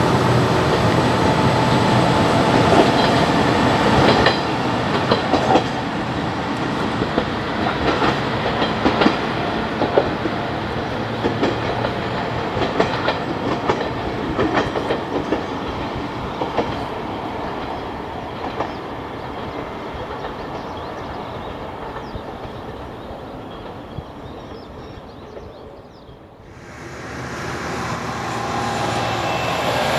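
Heisei Chikuho Railway 400-series diesel railcar pulling away, its wheels clicking over the rail joints as the running sound fades steadily into the distance. After a brief lull near the end, another railcar is heard approaching, growing louder.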